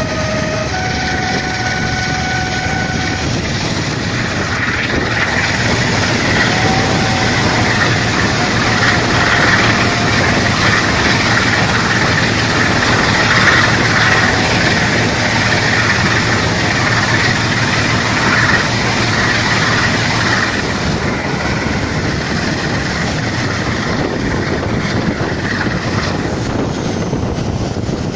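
Class 45 'Peak' diesel locomotive 45060 working hard on 'thrash', its Sulzer twelve-cylinder engine heard from a carriage window behind it. A horn note sounds in the first few seconds. The engine gets louder while the train runs through a tunnel for about fifteen seconds in the middle, then eases back in the open.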